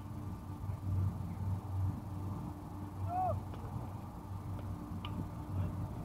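Wind buffeting the microphone: a low rumble that swells and drops unevenly, with a few faint sharp ticks.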